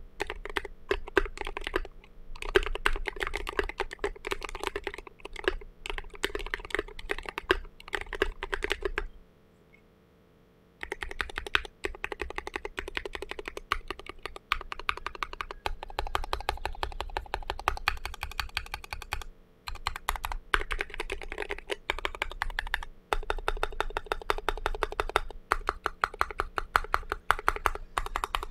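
Continuous fast typing on a custom mechanical keyboard with Thic Thock Marshmallow linear switches and tall SA-profile plastic keycaps, a quick run of keystrokes. The typing stops for about a second and a half about a third of the way in, then resumes.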